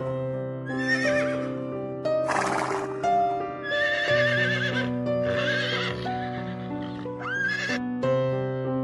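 A horse whinnying in several short, quavering bursts about a second apart, over background music of sustained keyboard notes.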